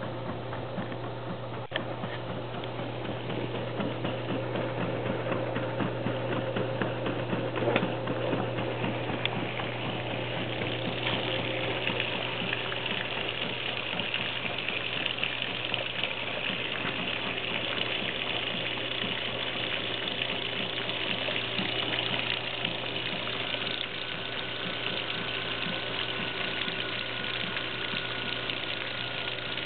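1941 Bendix Deluxe automatic washer running with its cabinet off: a steady motor hum and gear and mechanism clatter, while the drain pump sends a jet of water out of the drain outlet to splash on concrete. The splashing hiss grows louder about ten seconds in.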